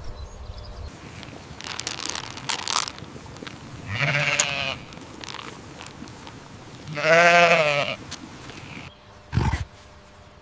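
An animal calling twice: a short call about four seconds in and a longer, louder call about seven seconds in whose pitch wavers. There are scattered clicks and crackles between the calls.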